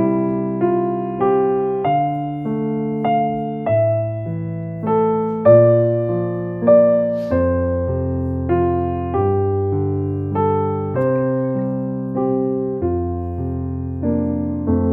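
Background music: a gentle piano melody with chords, notes struck about twice a second and left to ring.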